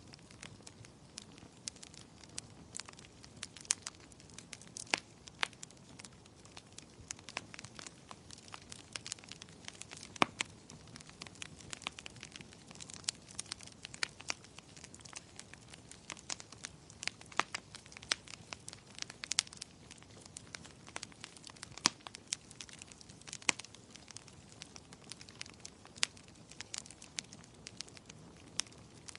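Wood fire crackling: irregular sharp pops and snaps, several a second, over a soft steady hiss.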